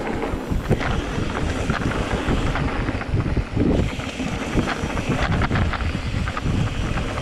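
Wind buffeting the microphone of a mountain bike riding fast down a dirt trail. Underneath are the rumble of knobby tyres on packed dirt and frequent short rattles and clicks from the bike over bumps.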